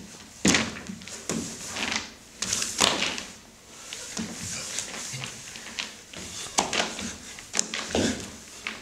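A dancer's body knocking and sliding on a studio dance floor: irregular thumps and swishes as he rolls and drops onto the floor, the sharpest knocks about half a second, one and a half, three, and six and a half seconds in.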